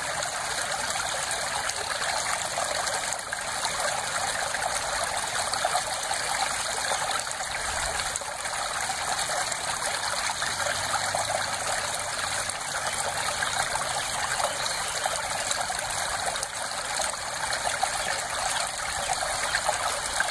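Small shallow stream trickling and babbling over dirt and stones, a steady even rush of water.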